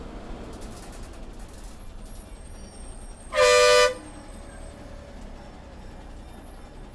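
One loud vehicle-horn blast, about half a second long, a little past the middle, over the steady low noise of a moving bus.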